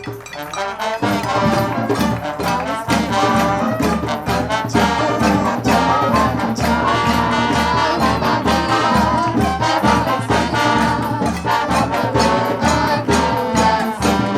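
Music with brass instruments playing over a steady beat, starting about a second in.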